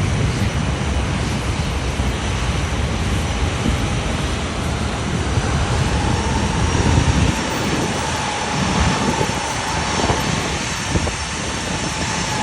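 Jet engines of an easyJet Airbus airliner passing, a steady broad rush with a deep rumble that falls away about seven seconds in, while a steady whine holds through the middle.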